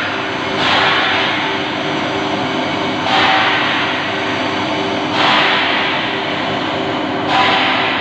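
Plate rolling machine running as its rolls bend a thick steel plate into a tank shell: a steady machine hum, with a rougher noisy surge about every two seconds.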